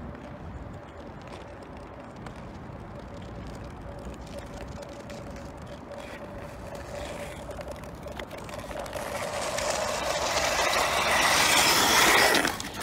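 Ice skates gliding and scraping over a frozen lake, growing louder as the skater closes in and peaking just before stopping close by. A faint steady tone runs underneath.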